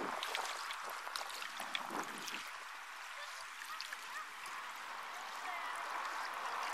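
Small lake waves lapping and splashing against shoreline rocks: a steady watery hiss dotted with many small, sharp splashes.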